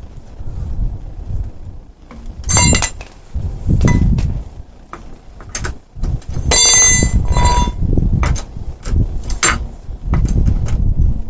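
Metal tools and parts clinking and clanking during a car tyre change. There is a string of sharp knocks, and two of the clanks, about two and a half seconds in and again around seven seconds in, ring on with a bright metallic tone.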